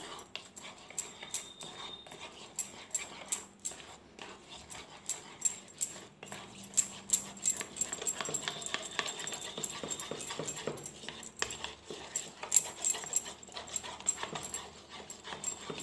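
A plastic spoon stirring and scraping a thick yogurt marinade in a plastic bowl: rapid, irregular clicking and tapping. A faint high whine sounds briefly about a second in and again for a couple of seconds around the middle.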